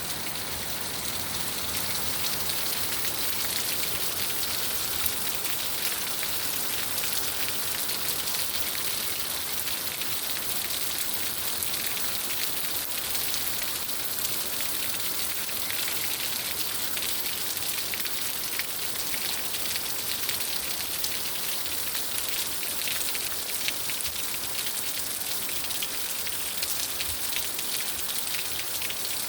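Steady rain falling, a continuous even hiss of drops with fine crackling patter on a surface.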